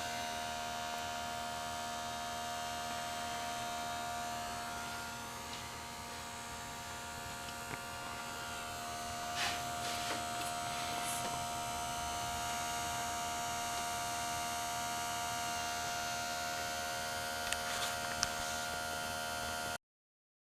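Small electric air pump of an automotive smoke tester running with a steady hum, pushing smoke into the engine's intake to find a vacuum leak. The sound drops out briefly just before the end.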